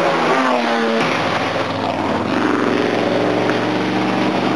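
Vintage racing car engines on track. One passing car's engine note drops as it goes by. After a short gap, another car's engine comes in and runs on at a steady, slightly rising pitch as it approaches.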